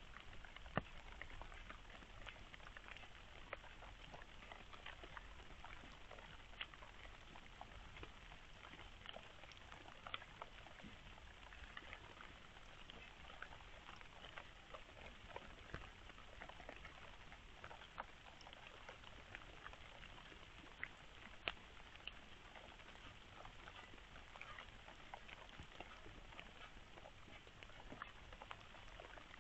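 Faint, scattered small clicks and crackles over a steady low hiss: a red fox foraging on gravelly ground, nosing about and chewing food.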